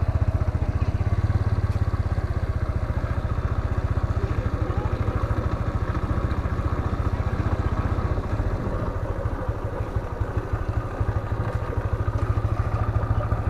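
Motorbike engine running steadily while the bike is ridden along a road.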